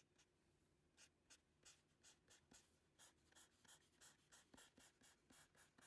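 Paper blending stump stroking lightly across drawing paper in quick, short strokes, about two or three a second from about a second in, adding light shading lines. Faint.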